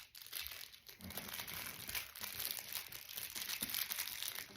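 Plastic fidget toys being handled and twisted: a steady crinkly plastic rustle with small clicks, starting about a second in.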